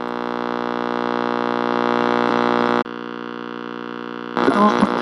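Radio being tuned: a steady electrical buzz between stations, with many overtones, swells and then switches abruptly to a quieter buzz just under three seconds in. About a second and a half later a station's broadcast, with voices, breaks through the hum.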